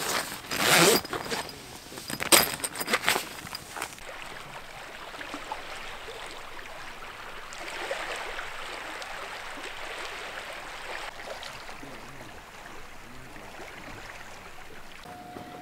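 A tent zipper is pulled in several quick, sharp strokes over the first few seconds as a ventilation window panel is opened. After that comes a steady, soft rushing of sea waves on the shore.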